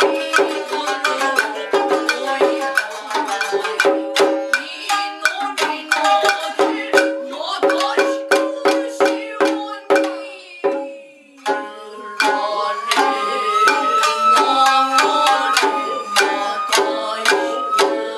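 Japanese nagauta ensemble playing an instrumental passage: shamisen plucks and taiko and tsuzumi drum strokes in a busy rhythm. From a little past the middle a bamboo flute joins with a long held tone that rises slowly in pitch.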